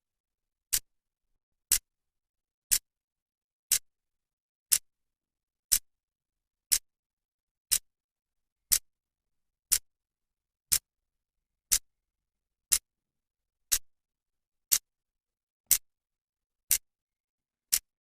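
Clock second hand ticking, one sharp dry tick each second.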